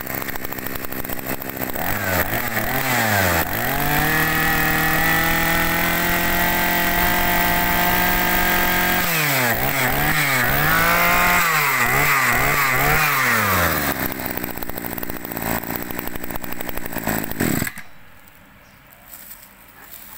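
Maruyama 23cc two-stroke brush cutter engine idling and being revved: it runs up to high revs and holds them for about five seconds, then is blipped up and down several times. It drops back to idle and stops suddenly near the end.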